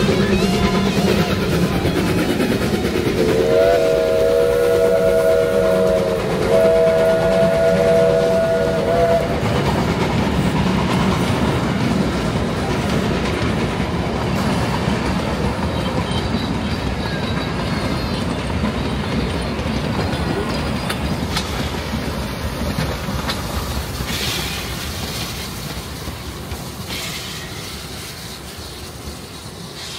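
Narrow-gauge steam train, an NGG 16 Garratt with an NA locomotive pushing at the rear, running past. Its steam whistle sounds two long blasts in close succession a few seconds in, and the train's sound then slowly fades away.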